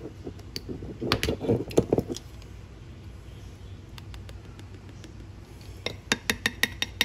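Light clinks and knocks of kitchenware as a teaspoon of hot sauce is measured into a ceramic mixing bowl with a plastic measuring spoon: a cluster of knocks about a second in, then near the end a quick run of light ringing taps, about six a second.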